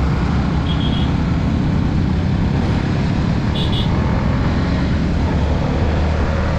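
Honda CBR150R's single-cylinder engine running steadily under way, mixed with wind and road noise on the microphone. Two brief high tones cut in, about a second in and just under four seconds in.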